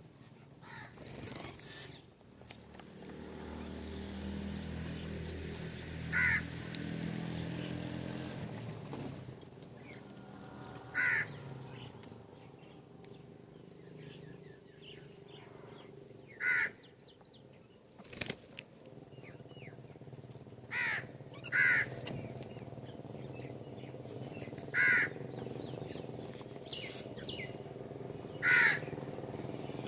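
Crows cawing: about seven short, loud caws, single or in quick pairs, spaced a few seconds apart.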